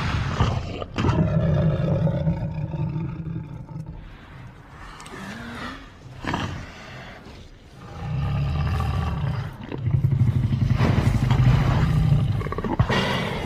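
Tyrannosaurus rex roar sound effects. A long, deep roar fills the first few seconds and is followed by quieter calls. A second long, loud roar starts about eight seconds in and is broken briefly near ten seconds.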